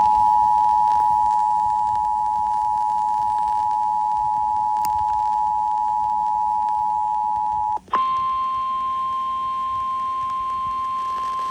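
Emergency Alert System two-tone attention signal, two steady tones sounding together for about eight seconds. After a brief break a single, slightly higher steady tone starts: the NOAA Weather Radio warning alarm tone that comes before the weather warning.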